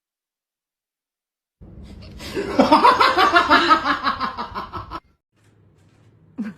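A person laughing hard in quick bursts, starting about a second and a half in and cut off abruptly about three and a half seconds later.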